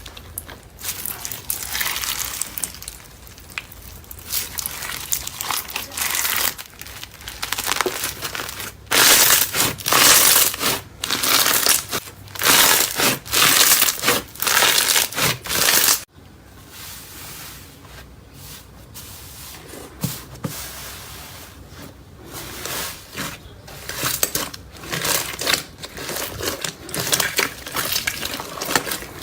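Slime being squeezed and pressed by hand, making crinkling, crackling noises in repeated bursts. The sound drops suddenly about halfway through, as the footage changes to another, quieter bout of slime play.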